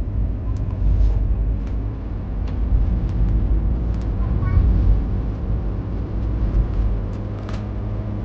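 Steady low road-and-engine rumble of a car being driven along a paved road, with a few faint small ticks.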